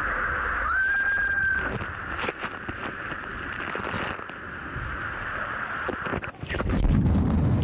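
Rushing water as a rider slides down an enclosed water-slide tube, with a brief high held tone about a second in. Near the end the water grows louder and lower as the rider is carried out toward the splash pool.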